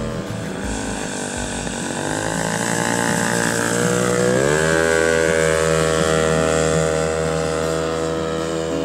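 Radio-controlled model biplane's engine and propeller running in flight, rising sharply in pitch and getting louder about halfway through as the throttle opens, then holding a steady high note.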